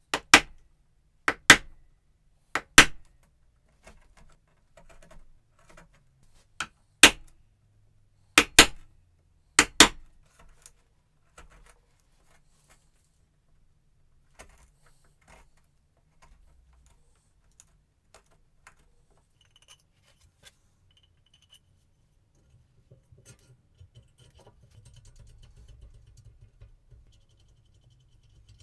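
Wood chisel struck hard into a spruce block: about ten sharp blows over the first ten seconds, often in quick pairs, then lighter taps and clicks as the recess is pared out. A low shuffling rumble comes near the end.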